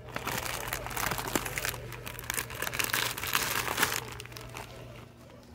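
Plastic snack bags crinkling as they are pulled from a stack on a shelf, a dense crackle that thins out near the end.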